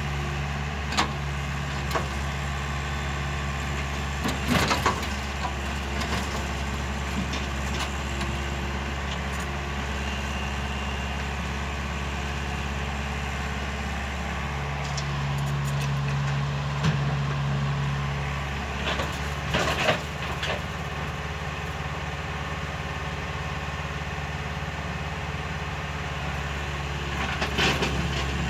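Hydraulic excavator's diesel engine running steadily, working harder for a few seconds around the middle as the loaded boom lifts and swings. Several sharp clanks and clatters come from the steel bucket striking and scraping broken rock, and from rock dropping into the steel bed of a tipper truck.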